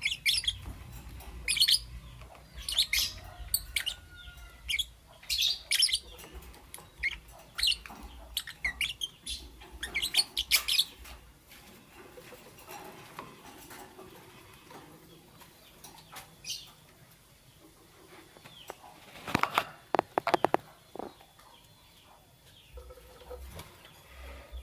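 Lovebirds chirping: rapid short, high, sharp chirps through the first half, thinning out, then a louder cluster of calls about three-quarters of the way through.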